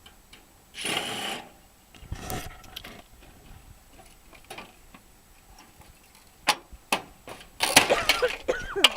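Sheet-steel panel being worked off an air conditioner unit: scattered metal clicks and knocks, a short scraping rush about a second in, then a louder clattering, scraping stretch of metal on metal near the end.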